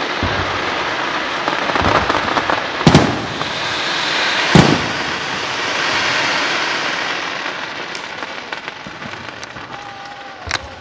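Fireworks: aerial shells bursting with sharp bangs, the two loudest about three and four and a half seconds in, over a dense, continuous crackle that slowly fades toward the end.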